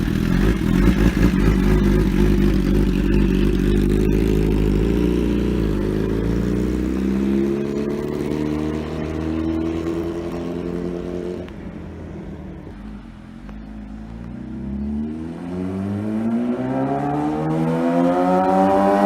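2015 Kawasaki ZX-10R inline-four sport bike with an SC Project aftermarket exhaust, making high-revving flyby passes. It is loud at first and its pitch falls as it moves away and fades about two-thirds of the way through. Then it comes back with the pitch climbing and the sound growing loud near the end.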